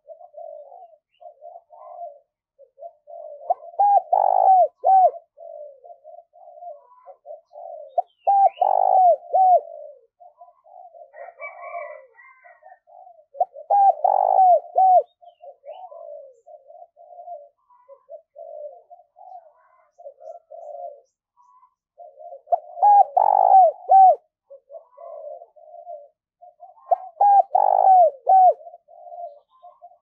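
Spotted dove cooing over and over in the urgent style of a decoy bird calling wild doves. A louder coo phrase comes roughly every five seconds, with softer cooing in between.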